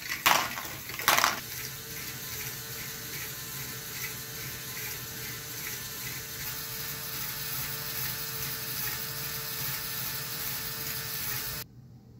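Lego Great Ball Contraption stepper module running: two sharp clacks of plastic balls near the start, then the motor and gear train whirring steadily with a faint regular ticking. The running sound cuts off suddenly near the end.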